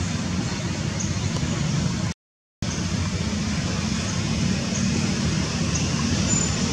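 Steady outdoor background rumble and hiss, like distant road traffic, with no distinct event. It cuts out to complete silence for about half a second just after two seconds in.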